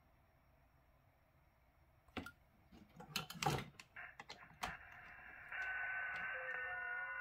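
Clicks and knocks from handling a Xiegu X6100 transceiver and connecting its antenna lead, then the radio's speaker opens up with band hiss that grows louder, and several steady overlapping tones of FT8 digital signals on 7.074 MHz come in near the end.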